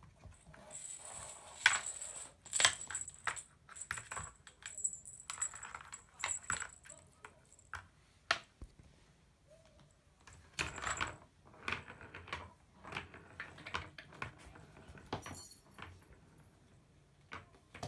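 A kitten playing with a plastic ball-track toy and a string wand: light clicks, rattles and scrapes in irregular bursts. A thin high ringing comes and goes through the first few seconds and again a little past the middle.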